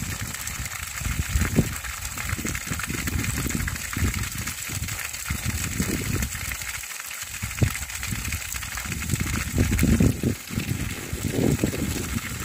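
Water gushing steadily from a plastic pipe spout and splashing into a stone fountain trough, with uneven low rumbling underneath that rises and falls.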